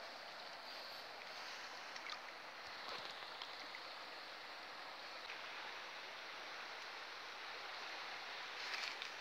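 Flowing river water rushing steadily past the bank, with a few light clicks near the end.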